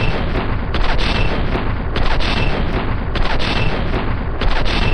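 M2 Browning .50 calibre heavy machine gun firing sustained automatic fire, dense rapid shots in bursts that repeat about every 1.2 seconds.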